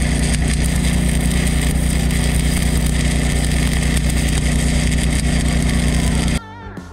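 Stick-welding arc crackling steadily as a 1/8 inch rod burns along a steel axle, over a steady engine-like drone; the welder himself felt the amperage was a little high, throwing off a lot of spatter. About six seconds in it cuts off suddenly to guitar music.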